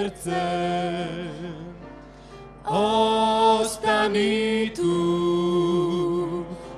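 A slow hymn being sung, with voices holding long, wavering notes. It fades down about two seconds in, then swells back up with new sustained notes.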